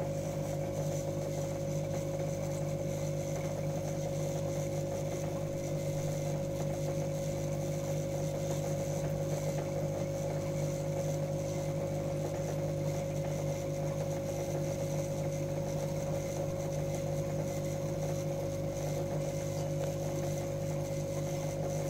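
Aquarium air pump running with a steady, unchanging hum, driving the stream of bubbles through the tank.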